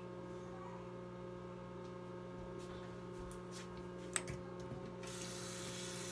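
A faint, steady electrical hum, with a few light clicks and a sharp knock about four seconds in. About five seconds in, a tap starts running water into the sink, as a washcloth is wetted.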